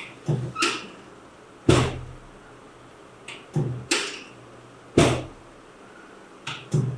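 A series of about eight sharp thumps at irregular spacing, several of them in quick pairs, each dying away within a fraction of a second.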